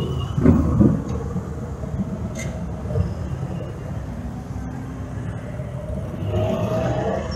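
Several motorcycle engines running with a low rumble as a column of motorcycles rides past.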